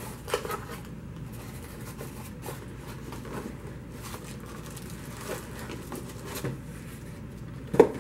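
Cardboard box flaps and plastic packaging rustling and crinkling as they are handled, with a few light knocks, then a single loud thump near the end as a shrink-wrapped box is set down on a table.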